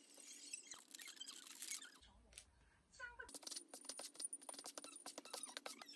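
A plastic sauce sachet crinkling as it is torn and squeezed over a cup of instant stir-fried noodles, then, from about three seconds in, a metal spoon stirring the noodles with a quick run of small clicks against the paper cup.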